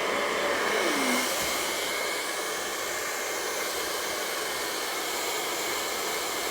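Hair dryer blowing steadily, a motor hum over rushing air, with a short falling tone in the first second or so.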